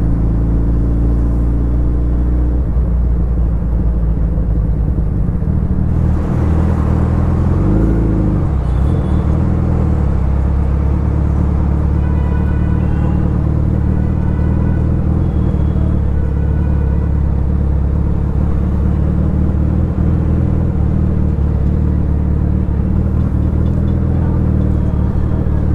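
Suzuki Hayabusa's inline-four engine running at a steady cruise while the bike is ridden through traffic, with a wide rush of wind and road noise. Faint short high beeps come midway.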